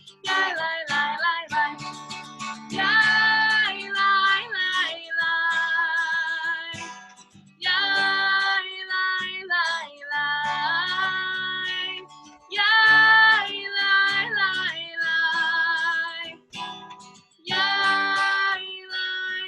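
Singing accompanied by acoustic guitar, in phrases of a few seconds with short breaks between them.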